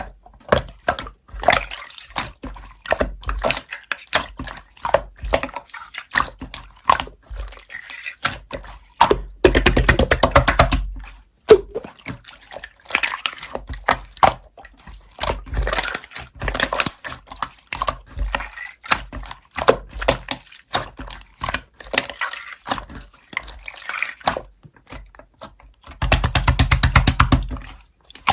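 Slime being squeezed and poked by hand, giving a string of short wet clicks and squelches, with two longer runs of dense crackling squelching, one about ten seconds in and one near the end.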